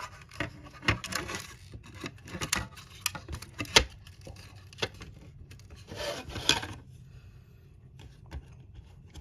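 Parts of a scale model kit being handled and slotted into place by hand: scattered small clicks and short scraping rubs. The sharpest click comes a little before four seconds in.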